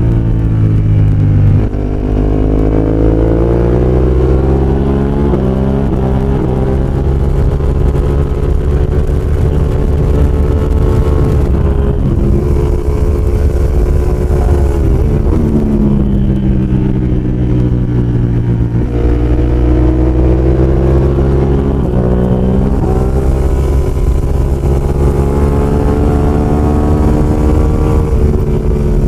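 Ducati 916 superbike's V-twin engine at racing speed, revving up hard through the gears and dropping in pitch as it slows for corners, several times over, under a steady rush of wind.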